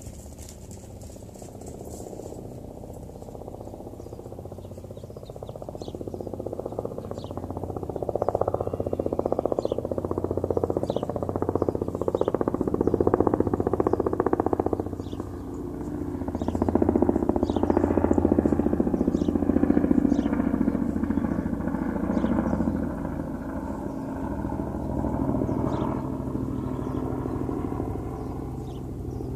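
A motor vehicle engine running, growing louder about a third of the way in and again past the middle, then easing off, with light ticks over it.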